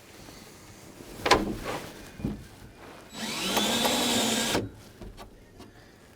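Power drill boring into the truck bed: it spins up, rising in pitch, runs for about a second and a half, then stops. A sharp knock comes about two seconds earlier.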